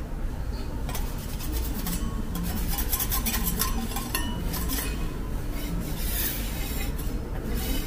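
Metal spatulas scraping and clinking against a steel teppanyaki griddle, in a busy, irregular run of short scrapes and knocks.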